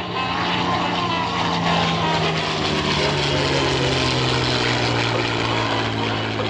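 Piston engines of a P-51 Mustang (Packard Merlin V-12) and an F4U Corsair (Pratt & Whitney R-2800 radial) flying past together in formation: a steady propeller drone whose pitch drops a little over two seconds in and keeps sliding lower as the planes pass by.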